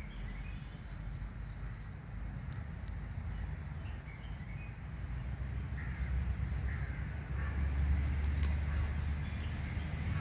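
Outdoor ambience: a low rumble that grows louder about two-thirds of the way through, with a few short bird calls.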